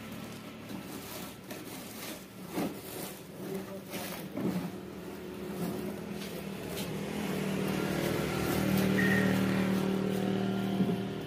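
A motor vehicle engine running steadily nearby, growing louder over the second half. A few sharp clicks and light crackles sound early on, as puffed rice is pressed and crushed under a wooden rolling pin.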